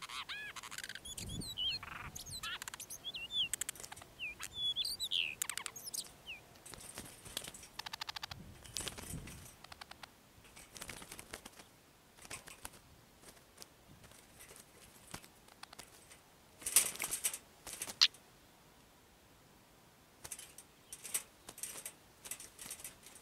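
Oriental magpie-robins in and on a wire trap cage: short chirping calls in the first few seconds, then scattered clicks and rustles of wings and feet against the wire, with a louder flurry a little past the middle.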